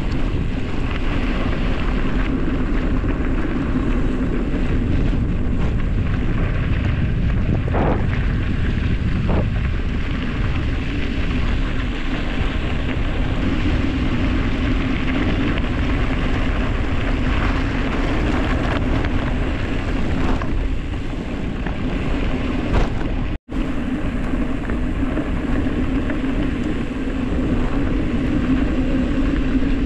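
Steady rushing wind on the microphone mixed with tyres rumbling over a dirt road on a fast descent. The sound cuts out for an instant about two-thirds of the way through.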